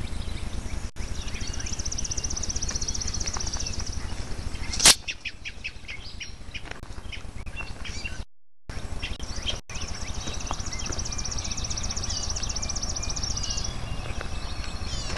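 A songbird singing a rapid, high, evenly pulsed trill, twice, each lasting a few seconds, over a steady low rumble. A single sharp click, the loudest sound, comes about five seconds in, and the sound cuts out briefly near the middle.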